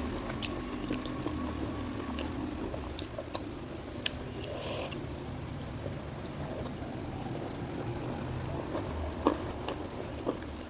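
Scattered light clicks and a short rustle of food and utensils being handled over a steady low hum, just before eating begins.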